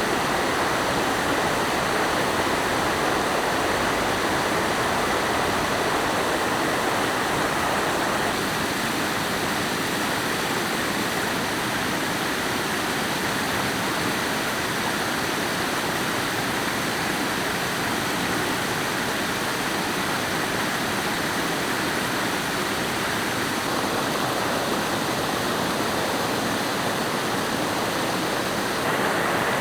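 Steady rush of flowing water, an even noise without breaks, dipping slightly in level about eight seconds in and rising again near the end.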